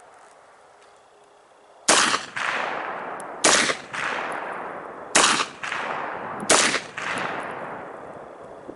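Four single rifle shots, evenly paced about a second and a half apart, starting about two seconds in. Each shot is followed about half a second later by a sharp echo and a long fading tail.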